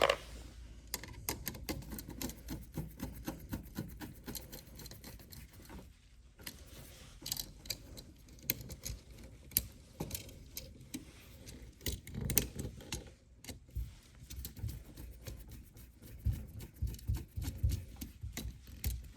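Small, irregular metallic clicks and rattles of hand tools and wiring being worked on a wall receptacle: solid wire ends bent into hooks and wrapped around the receptacle's screw terminals, with the screws being tightened. A few soft low knocks of handling come in about twelve seconds in and again near the end.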